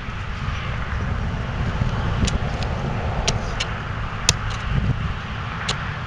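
Steady noisy outdoor rumble and hiss, with several sharp clicks about two to six seconds in.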